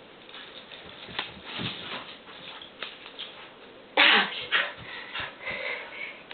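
A dog making sounds, with a loud sudden call about four seconds in that drops in pitch, followed by a few shorter sounds.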